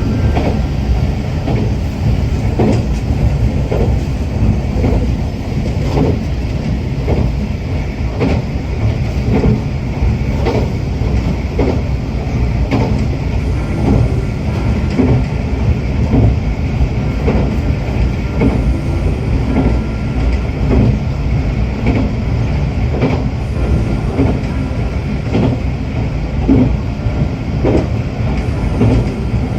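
Diesel railcar running along the track with a steady low rumble, its wheels clacking over rail joints about once or twice a second.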